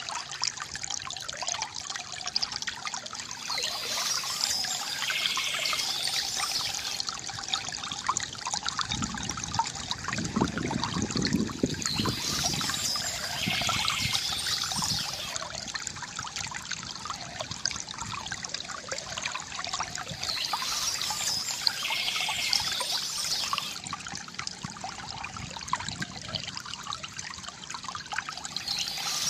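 Water trickling and gurgling from a bamboo fountain spout, swelling into a fuller, lower pour about ten seconds in. Birds chirp in the background at intervals of about eight seconds.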